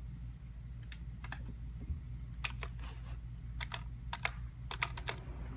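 Computer keyboard keys being pressed: about a dozen scattered, irregular keystroke clicks, several close together near the end, over a low steady hum.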